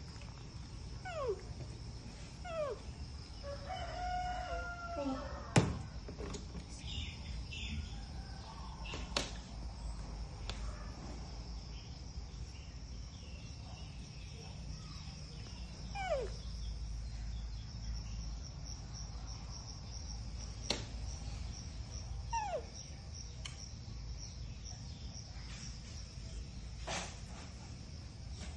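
A rooster crows in the background about four seconds in, with a few short falling calls coming and going. Under it runs a steady high insect trill that pulses in the second half, over a low hum, with a few sharp clicks.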